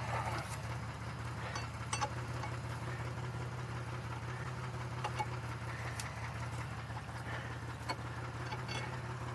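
Car engine idling steadily, with a few faint clicks.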